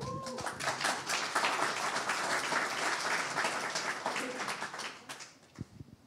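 Audience applauding, starting at once and dying away about five seconds in.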